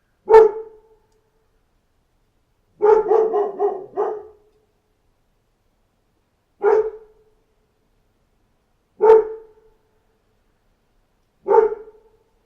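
A dog barking in single short barks a few seconds apart, with a quick run of about five barks around three seconds in.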